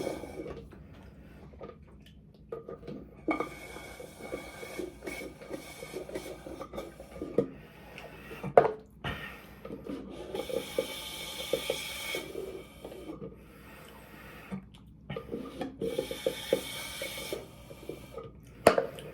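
Close-miked rustling and rubbing in three stretches of a few seconds each, mixed with many small clicks and soft knocks: food and its paper wrapping being handled and eaten.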